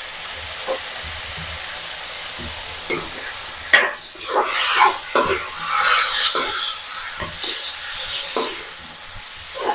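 Mushrooms, potato and onion sizzling in a wok, turned with a metal spoon that scrapes and clinks against the pan. A few strokes come early, and the stirring gets busier from about four seconds in.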